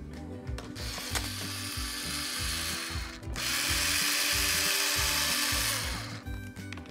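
Small cordless electric screwdriver whirring in two runs against a plastic toy truck's chassis, a shorter run first and then, after a brief stop about three seconds in, a longer louder one. Background music plays underneath.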